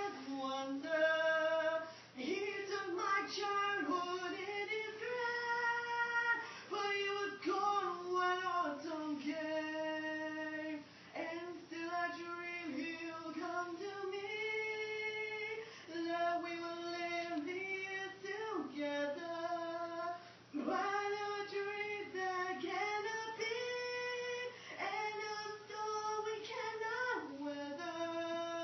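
A young woman singing solo: one voice moving through phrases with long held notes and short breaths between them.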